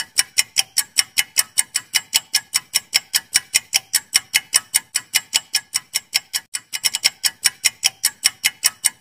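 Clock-ticking countdown-timer sound effect of a quiz, sharp even ticks at about five a second.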